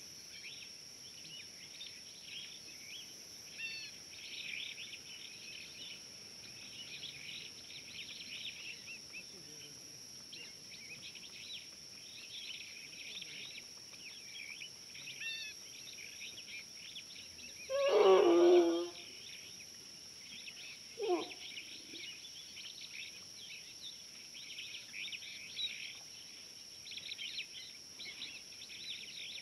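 Outdoor waterhole ambience: birds chirping throughout over a steady high-pitched drone. About 18 seconds in comes one loud animal call lasting under a second and falling in pitch, and a weaker, shorter call follows a few seconds later.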